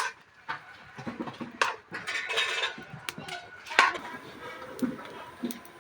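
Metal utensils clinking and scraping against a cooking pot, with several sharp clinks spread irregularly through the stretch.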